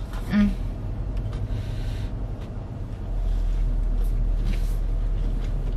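Car cabin noise: a steady low rumble of engine and road noise that gets louder about three seconds in.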